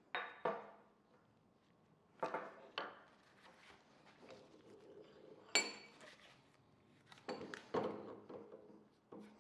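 Heavy cast-iron parts of a disassembled Wilton bullet vise being handled and set down on a metal workbench: a series of separate metal clunks and clinks, some ringing briefly. The sharpest clank comes about halfway through, and a cluster of knocks follows near the end.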